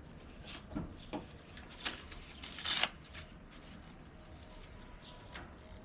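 Handling noises while working on a mountain bike: scattered light clicks and rustles, with a longer scraping rustle just before three seconds in.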